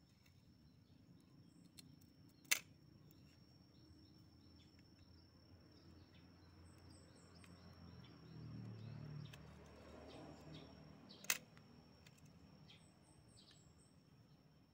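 Two sharp clicks about nine seconds apart from a homemade crossbow trigger mechanism of steel plates, pivoting latch pieces and a spring wire as it is worked by hand, with faint handling rustle between them.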